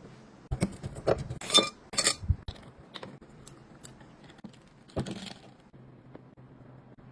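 Kitchenware clinking and tapping: a quick cluster of light knocks and clinks in the first two seconds, one with a short ring, and another clink about five seconds in.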